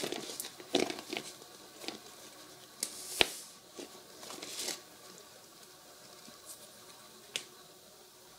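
Hands handling ballet flats on a wooden floor: irregular rustling and light taps and scrapes, with one sharp click about three seconds in. It quietens after about five seconds, with one more tap near the end.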